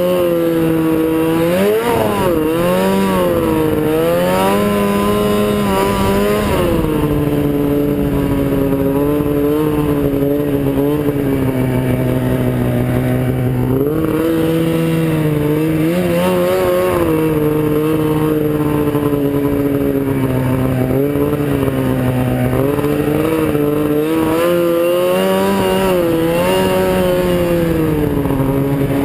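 Arctic Cat F7 snowmobile's two-stroke twin engine running under way, its pitch rising and falling repeatedly with the throttle.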